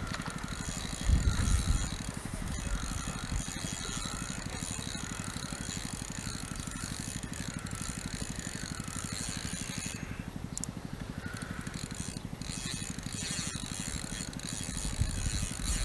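Spinning reel on a feeder rod being cranked steadily while a hooked fish is played: a fast, even whirr of the reel's gears that swells and fades in time with each turn of the handle.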